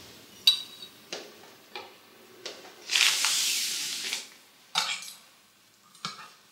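Cutlery clinking against a plate during a meal at a table: a series of short, light clinks, with a rustling hiss lasting about a second near the middle.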